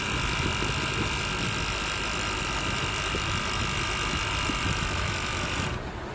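Air suspension compressor running with a steady whine over a low rumble, cutting out sharply near the end.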